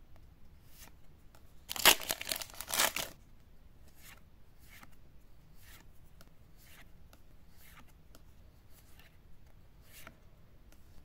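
Pokémon trading cards being slid off a stack one at a time, soft swishes and clicks every second or so. About two seconds in, a loud crinkling rustle lasting a little over a second.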